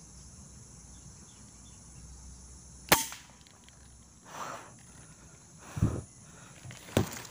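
A single sharp crack of an air rifle shot, about three seconds in, fired at a spotted dove, followed by a few duller thuds.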